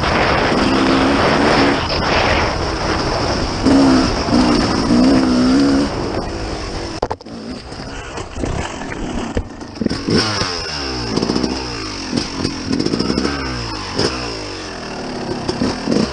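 Dirt bike engine heard close from the rider's own machine, revving up and down as it is ridden along a trail. The engine note holds high for the first few seconds, drops back around the middle, then rises and falls repeatedly as the throttle is worked.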